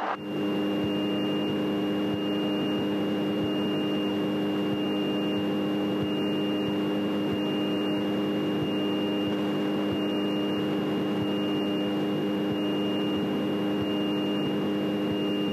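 Single-engine piston airplane's engine and propeller droning steadily at taxi power, heard through the cockpit headset intercom. A constant high-pitched whine sits over the drone.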